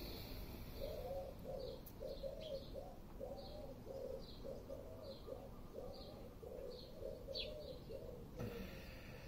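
Birds calling: a pigeon cooing over and over from about a second in until shortly before the end, while a small bird gives short high chirps about once or twice a second.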